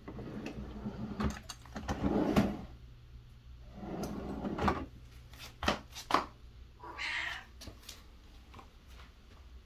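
Dresser drawers sliding open and shut, with a couple of sharp knocks, then a cat meows once about seven seconds in.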